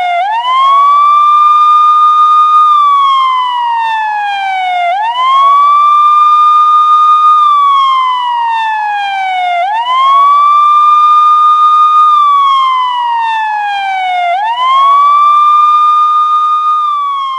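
Police siren on its wail: the tone sweeps quickly up, holds high for about two and a half seconds, then slides slowly down, four times over.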